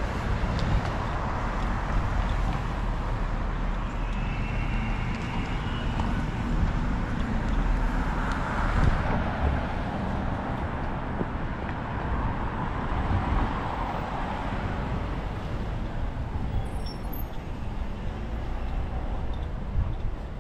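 Steady city street traffic noise with a low rumble, swelling twice as vehicles pass.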